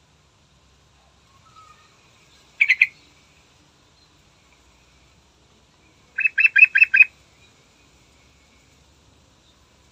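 Yellow-vented bulbul calling in short, loud note groups: a brief burst of two or three notes, then a few seconds later a quick run of five notes.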